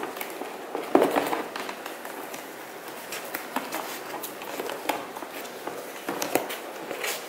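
Packaging being handled while a box is unpacked: scattered clicks, crinkles and rustles, with a louder cluster about a second in.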